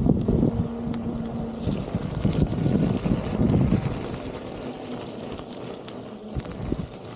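Wind buffeting the camera microphone as a Begode EX30 electric unicycle rides along, with a steady motor whine in the first couple of seconds and tyre noise over tarmac and then gravel. The buffeting is heaviest in the first half.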